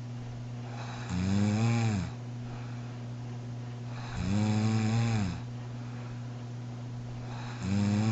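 A sleeping woman snoring: three drawn-out snores about three seconds apart, each rising and then falling in pitch, the third starting near the end.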